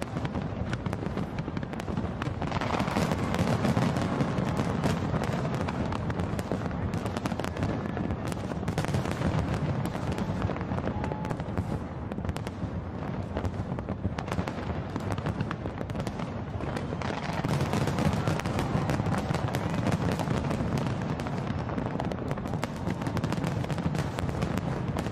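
Large aerial fireworks display going off continuously: a dense barrage of overlapping bangs and crackles, building up about 2.5 seconds in and again from about 17 seconds in.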